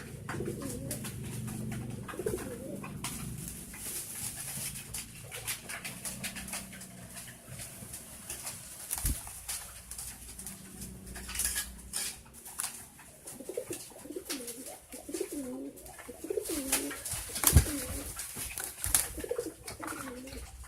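Domestic pigeons cooing, low and rolling, over and over, with a quick run of repeated coos in the last third. A few sharp knocks cut in, the loudest late on.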